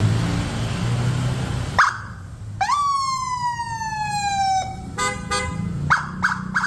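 Electronic vehicle siren being tested through its tones: after a click about two seconds in, one long falling tone, then two short blips and a run of quick chirps. A steady hiss and hum fills the first two seconds.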